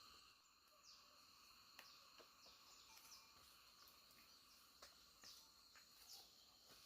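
Faint chorus of insects such as crickets, a steady high-pitched trilling, with scattered short downward chirps and a few light clicks.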